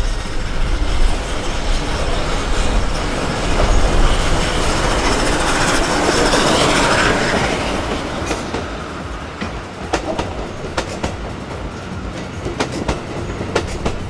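D51 200 steam locomotive and its passenger coaches passing close by. A heavy rumble swells to its loudest about six to seven seconds in as the engine goes past, then gives way to the coaches' wheels clicking over the rail joints.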